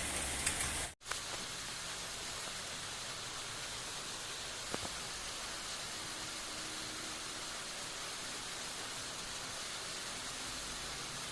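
Steady, even hiss like static, after a sudden dropout about a second in; one faint click near the middle.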